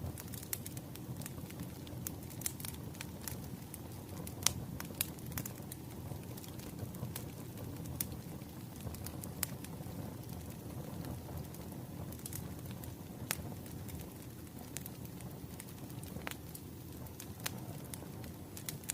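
Firewood logs burning, crackling with irregular sharp pops and snaps over a steady low rumble of the flames.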